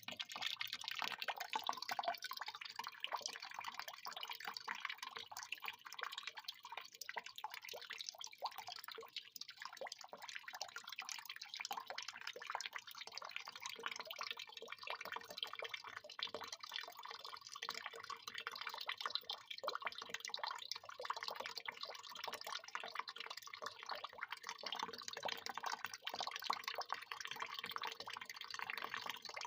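Water pouring in a steady stream, with continuous splashing and dripping.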